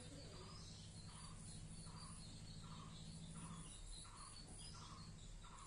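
Faint background chirping: one short call repeated about every three-quarters of a second, over a low steady hum.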